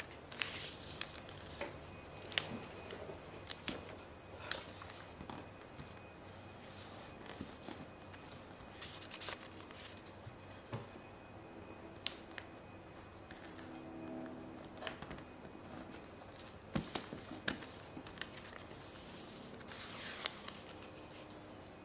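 Paper being folded and creased by hand on a wooden table: quiet rustling with scattered light taps and clicks, and a longer rustle near the end.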